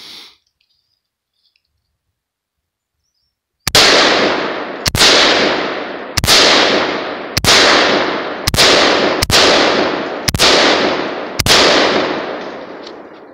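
Eight semi-automatic rifle shots from a Riley Defense AK-47 (RAK47 Classic) chambered in 7.62×39mm, fired at a slow steady pace about a second apart after a few seconds of near silence. Each shot rings out in a long echo that fades over about a second.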